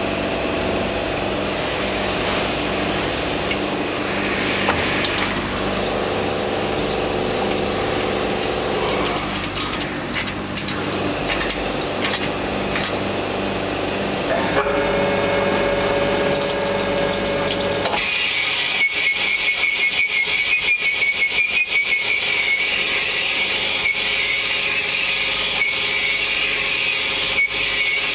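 Shop machine tool working on an engine cylinder block, running with steady tones that shift every few seconds. About two thirds of the way in the sound changes abruptly to a high whine with a rapid, even ticking.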